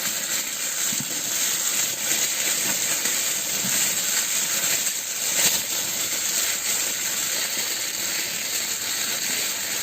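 Sheet of plastic gift-wrap foil pressed and crinkled close to the microphone, giving a steady, even, high-pitched patter that stands in for falling rain.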